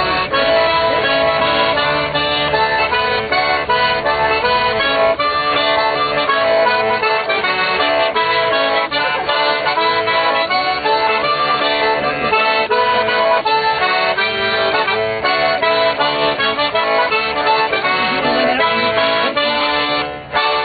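Accordion playing a tune, melody over steady rhythmic chords.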